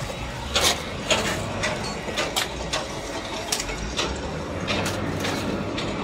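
Irregular mechanical clicks and knocks over a steady background noise.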